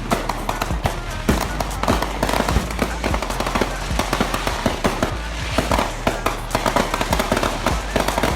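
Fireworks crackling in rapid, irregular pops, many a second, over music with a steady bass.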